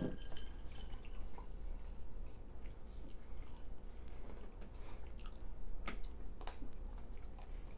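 People chewing pizza close to the microphone, with faint wet mouth clicks and smacks here and there and a few sharper ones about six seconds in.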